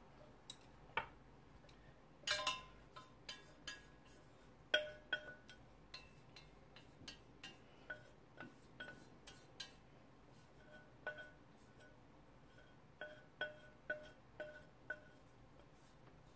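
Light clinks of wooden chopsticks tapping and scraping a small stainless steel pot as noodles are knocked out of it into a bowl. About twenty irregular taps, each ringing briefly at the same pitch.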